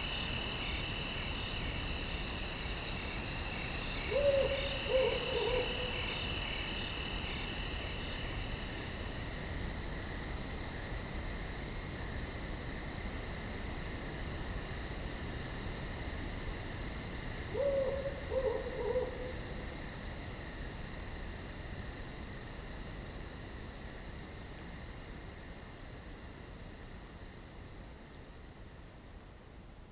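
Steady chorus of night insects, a continuous high trill with a lower pulsing band that drops out about nine seconds in. An owl calls twice, a short series of falling hoots about four seconds in and again about eighteen seconds in. The whole chorus gradually fades toward the end.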